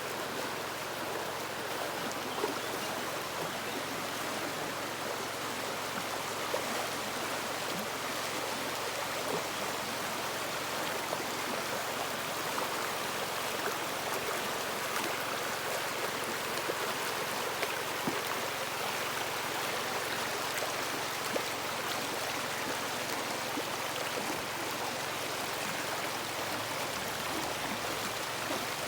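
River water flowing and splashing over rocks, a steady rushing sound with small splashes.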